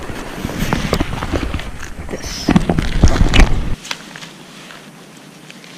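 Rummaging through a backpack close to the microphone: pack fabric rustling and rubbing, with scattered knocks and clicks as things are moved about, loudest from about two and a half seconds in. A little after three and a half seconds the low rubbing noise drops away suddenly, leaving only light handling sounds.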